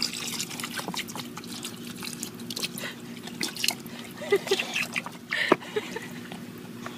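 A thin stream of water trickling and splashing into a plastic water-table basin, with many small splashes and drips throughout and a steady low hum underneath.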